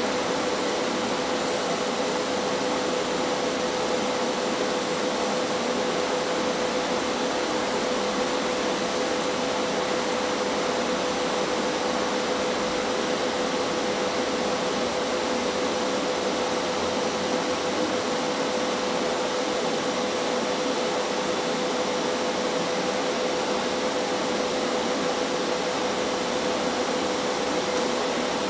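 TIG welding arc burning steadily: an even hiss with a steady mid-pitched hum running under it.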